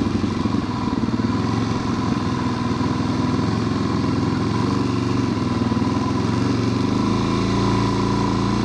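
Motorcycle engine running steadily at low revs, its note shifting slightly about seven seconds in.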